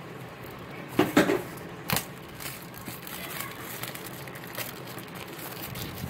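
Clear plastic shrink wrap being torn and pulled off a small cardboard box, with a few loud crackles about a second in and again near two seconds, then softer crinkling.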